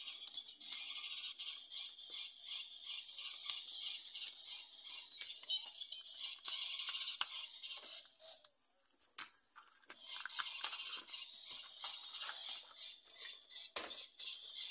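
Small plastic toy train parts being handled and fitted together, with scattered sharp clicks and taps, over a fast, high-pitched pulsing trill that stops for about two seconds around eight seconds in.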